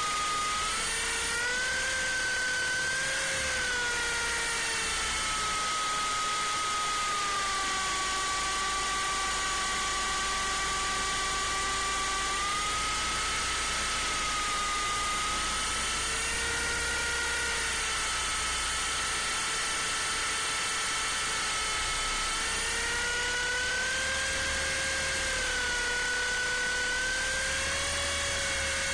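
Electric motor and rotor whine of an MJX F45 RC helicopter in flight, heard close up through its on-board camera. It is a high, steady whine whose pitch rises and falls as the motor speeds up and slows: higher about two seconds in, lower through the middle, and higher again in the last few seconds.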